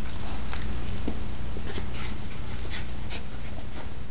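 Jack Russell terrier moving about and stepping onto a plush dog bed: scattered light taps and rustles from its feet and body, over a steady low hum.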